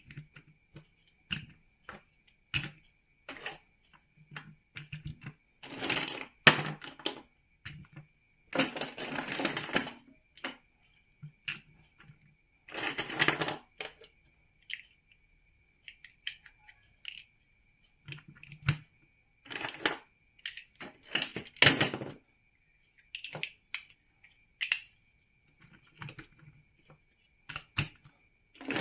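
Hard plastic building bricks being handled and pressed together: scattered sharp clicks and snaps, with several stretches of about a second of rattling and rummaging among loose bricks.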